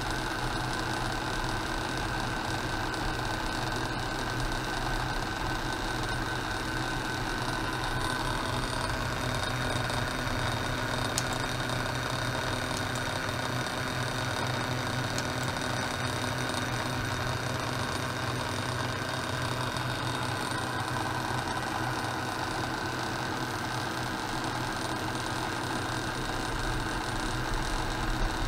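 Steady electrical-mechanical buzz from an ultrasonic test rig, with ultrasonic probes driven by a function generator, made of a low hum and thin, steady high whines.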